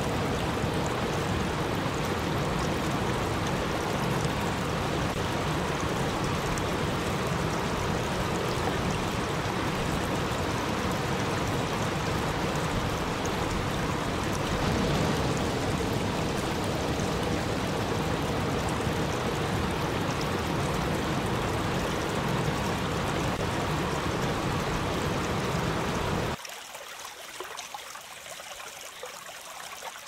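Small waterfall cascading over rocks into a river: steady rushing, splashing water. It cuts off abruptly near the end, leaving only a much fainter sound.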